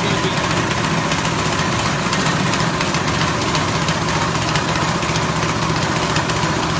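Rice husk grinding machine running steadily under its engine, an even, unbroken drone.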